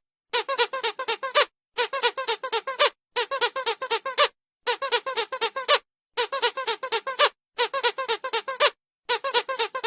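Squeaky dog toy squeezed in quick rhythmic runs of six or seven high squeaks. The runs come in about seven bursts, each lasting about a second, with brief pauses between them.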